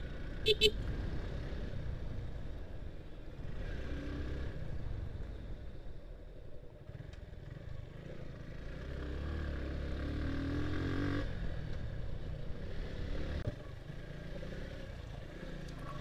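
Suzuki Gixxer motorcycle's single-cylinder engine running steadily as the bike rides, its note rising between about nine and eleven seconds in, then dropping off suddenly. Two short beeps, the loudest sounds, come about half a second in.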